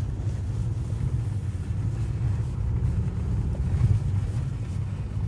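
Steady low rumble of a car's engine and tyres on a snow-covered mountain track, heard from inside the cabin.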